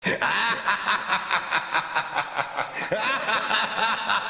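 A rapid, regular run of short, high chirping sounds, about four or five a second, each with a small rise and fall in pitch.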